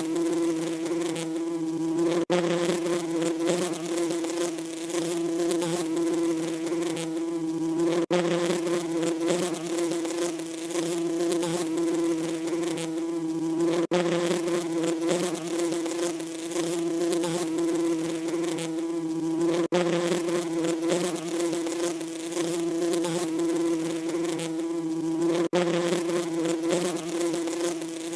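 Bee buzzing: a steady, loud drone with a slight wavering pitch. A very brief break comes about every six seconds.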